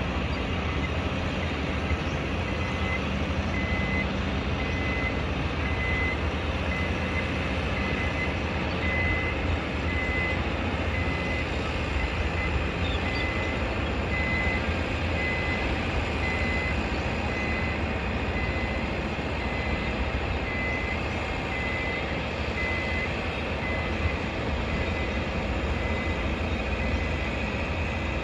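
A vehicle's reversing alarm beeping about once a second, a steady high beep, over the constant rumble of engines and machinery at a construction site.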